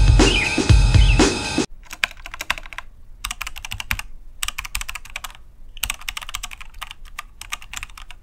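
Music with a drum beat that cuts off suddenly, followed by typing on a laptop keyboard in several quick bursts with short pauses between them.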